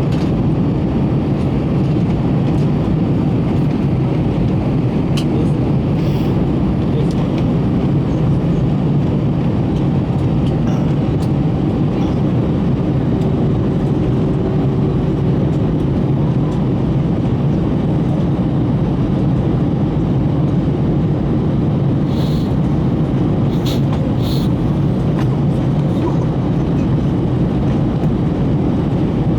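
Steady cabin noise inside an Airbus A321 in flight: the low, even rumble of engines and airflow, with a few faint clicks scattered through.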